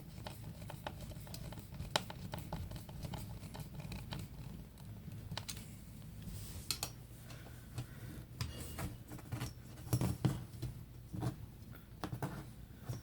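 A screw being driven by hand with a screwdriver into a particleboard drawer's support brace, with scattered small clicks and scratches of handling and a few louder knocks about ten seconds in.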